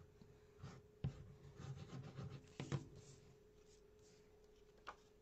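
Paper and cardstock handled on a tabletop: faint rustling and rubbing as layered card pieces are pressed together, with a few light taps about a second in, near the middle and near the end.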